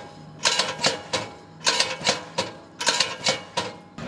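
Lineman striking a spring-mounted padded blocking machine with his hands: sharp slaps and clacks in quick bursts of three or four strikes, about four a second, with short pauses between bursts.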